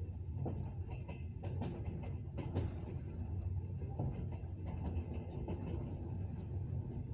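A passenger train running along the track: a steady low rumble with irregular knocks and clatter of the wheels over the rails.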